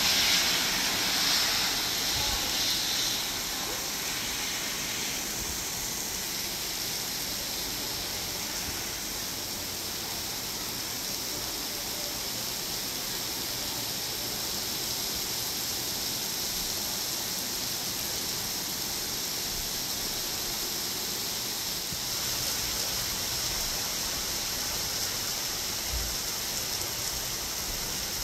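Heavy rain falling steadily, a dense even hiss, louder for the first few seconds.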